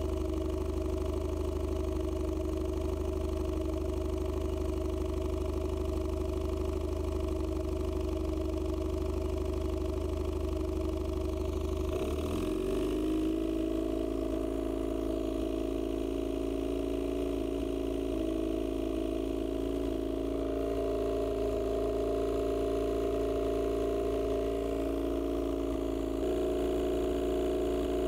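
2008–2009 Evinrude E-TEC 50 hp two-cylinder two-stroke outboard running on flushing muffs through its winterizing fogging cycle. It runs steadily at idle, then about halfway through picks up speed and holds steady at the higher speed.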